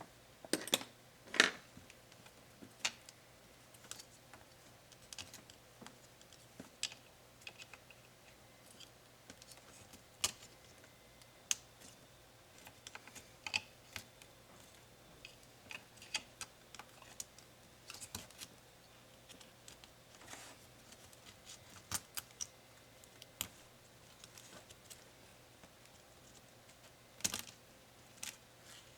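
Irregular small clicks and taps of a Dell Inspiron 7558 laptop's parts and tools being handled during disassembly, with a couple of louder clacks about a second in and near the end.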